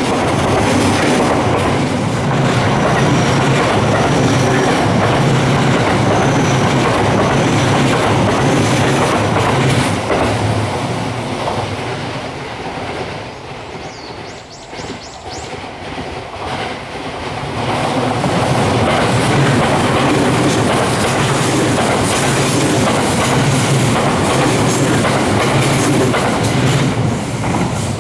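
JR West Series 287 electric trains passing at speed, wheels clicking over the rail joints. The first train runs by and fades out about ten seconds in. After a quieter spell, a second Series 287 train comes through in the other direction from roughly seventeen seconds on.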